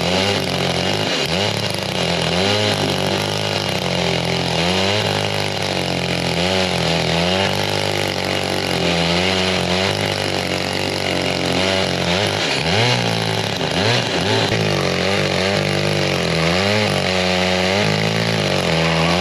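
Echo two-stroke chainsaw running under load in a freehand milling cut along a log, its engine pitch rising and falling as the chain bogs and recovers in the wood.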